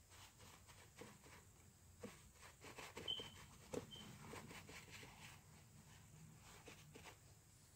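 Faint, irregular soft taps of crumpled tissue paper dabbed against a stretched canvas, stippling on acrylic paint. Two brief high chirps sound about three and four seconds in.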